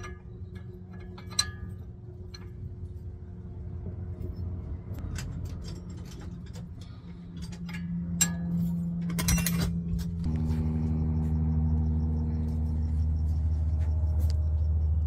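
Sharp metal clicks and clinks of an open-end wrench on a tie-rod end nut, over a steady low hum. About ten seconds in, the hum turns into a louder, steady vehicle drone with several held pitches.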